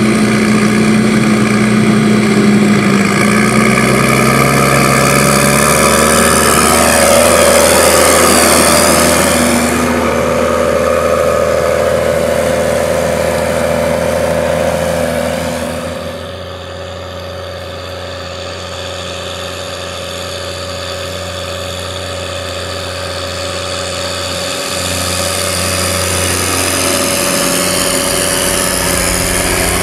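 New Holland T7070's overboosted 6.7-litre NEF six-cylinder diesel running through an open exhaust pipe. The revs climb a few seconds in and hold high. About halfway through, the sound turns quieter and duller, then builds again near the end.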